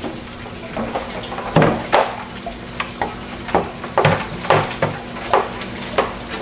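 Hard plastic knocking and scraping as the blue pump tube is twisted and screwed into the underside of a plastic Tower Garden base lid: a run of irregular short knocks and scuffs, with a few louder knocks from about one and a half seconds in.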